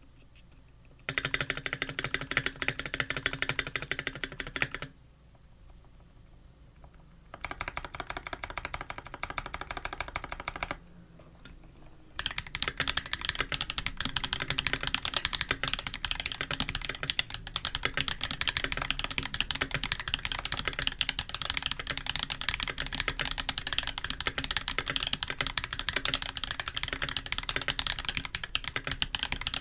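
Typing on an Eo87 custom mechanical keyboard with lubed Holy Panda tactile switches, 55 g springs, a 5 mm acrylic plate and GMK keycaps. There are two short bursts of key presses with pauses between them, and the second burst is softer. Then comes long, continuous, rapid typing.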